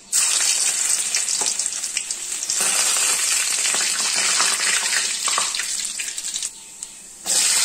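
Hot oil in a wok sizzling and crackling as chopped ginger is added to a tempering of popped mustard and fenugreek seeds. The sizzle starts suddenly, breaks off briefly near the end, then resumes.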